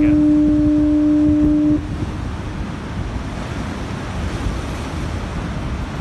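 Lighthouse foghorn sounding one steady blast on a single low tone, about two seconds long, cutting off about two seconds in. After it comes the steady rush of surf.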